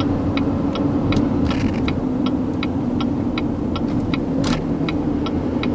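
Steady engine and road noise inside a moving vehicle's cabin, with a turn signal ticking evenly, nearly three clicks a second.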